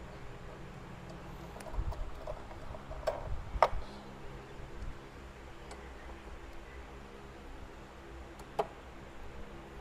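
Light clicks and knocks of a hand tool and parts being undone in a car's engine bay. There is a cluster in the first half, the sharpest click about three and a half seconds in, and one more click near the end, over a steady low hum.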